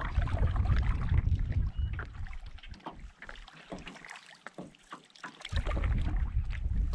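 Water lapping and slapping against a canoe's hull in irregular little splashes, with wind rumbling on the microphone that drops away for a couple of seconds past the middle and then returns.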